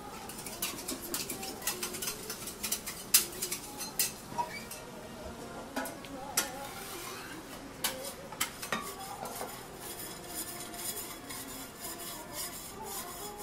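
Metal teppanyaki spatulas clicking, tapping and scraping on a steel griddle, many quick strikes, over the steady sizzle of thin slices of beef tongue frying. The strikes thin out in the last few seconds.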